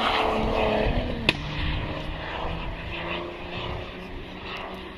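Steady motor hum of several pitches that slowly fades, with one pitch sliding down within the first second and a single sharp click about a second and a half in.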